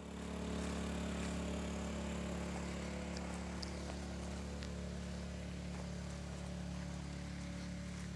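A steady, low engine hum running evenly without revving, with a few faint high ticks over it.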